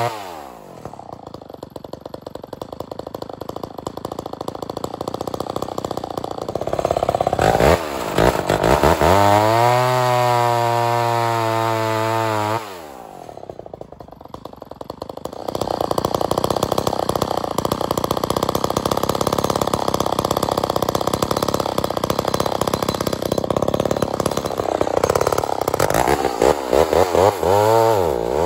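Vintage 68cc Lombard Super Lightning chainsaw's two-stroke engine dropping to idle, then revved to full throttle and bucking through firewood logs, its pitch wavering and sagging under load. It idles briefly again partway through before a long full-throttle cut.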